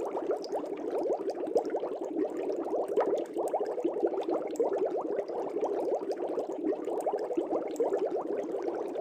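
Aquarium air bubbles bubbling steadily, a dense run of small quick bloops and pops with no letup.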